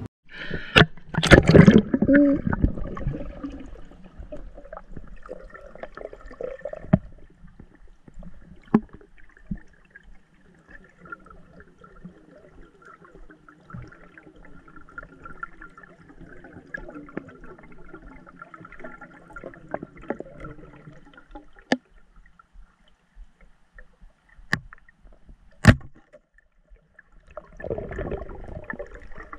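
Lake water sloshing and gurgling around the microphone, with a loud rush of water about a second in and another near the end. A few sharp clicks sound in between.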